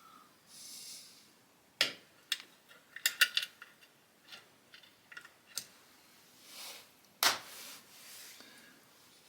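Small metal parts clicking and tapping as they are handled during hand assembly: a sharp click about two seconds in, a quick run of clicks around three seconds, and another sharp click near the end.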